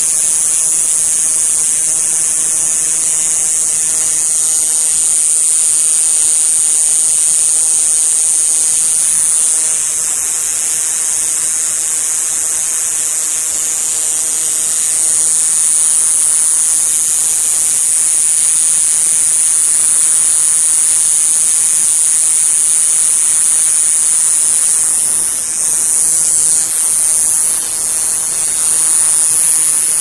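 Male citrus cicada (Diceroprocta apache) singing with its tymbals: a loud, continuous high-pitched buzz that wavers and dips briefly near the end. Heard through a cell phone microphone that renders it oddly.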